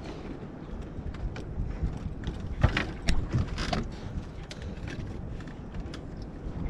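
Irregular mechanical clicks, knocks and creaks over a low steady rumble of wind and boat, with two louder clatters about two and a half and three and a half seconds in.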